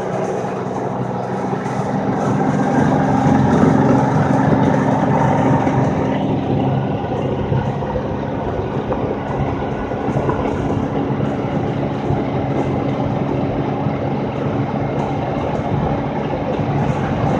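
Steady running noise of a vehicle on the move, heard from inside the cabin: the engine drone and the tyres on the road, a little louder for a few seconds early on before settling.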